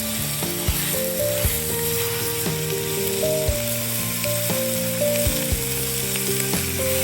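Food sizzling as it fries in a pan, a steady hiss, under background music of held melodic notes with occasional sharp percussive hits.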